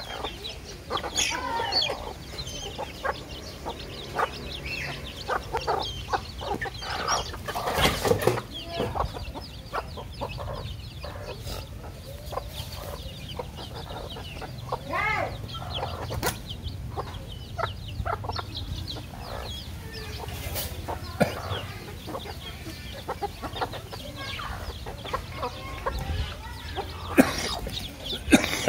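A flock of chickens feeding: hens clucking steadily and chicks making many short, high peeps, with a few sharp knocks, the loudest about eight seconds in and again near the end.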